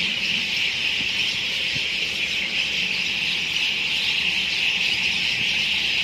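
A large flock of birds roosting in trees, many calling at once in a dense, steady, high-pitched chorus.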